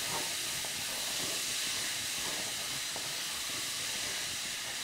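Chopped onions sizzling steadily in bacon fat in a stainless steel saucepan while a wooden spoon stirs them, as they cook down toward browning.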